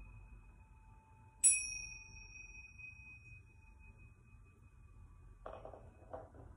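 A pair of small brass tingsha-style hand cymbals struck together once, about a second and a half in, then ringing out in high, slowly fading tones over the last of an earlier ring. The strike marks the end of the meditation period. A brief soft noise follows near the end.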